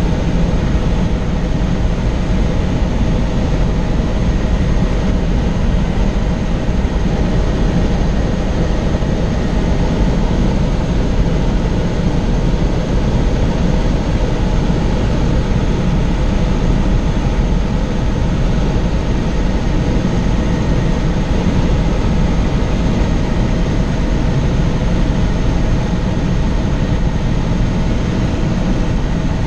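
Helicopter in level flight heard from inside the cabin: a loud, steady engine and rotor drone with a few faint steady tones over it.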